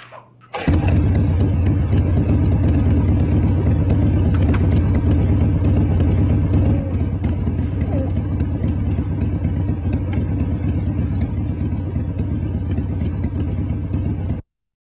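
Harley-Davidson motorcycle's V-twin engine starting about half a second in and then idling with a steady low rumble, cut off abruptly near the end.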